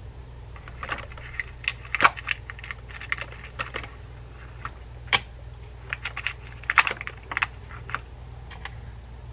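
Irregular clicks and rattles of small metal screws and reel parts being picked through by hand in a plastic parts container, with screws set down on a wooden workbench.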